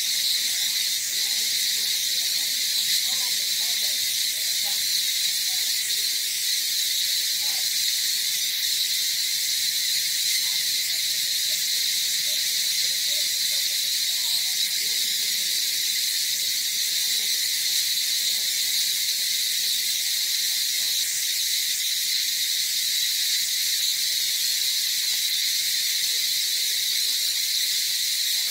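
Steady, unbroken chorus of insects: a high, shrill buzz that holds level without pauses.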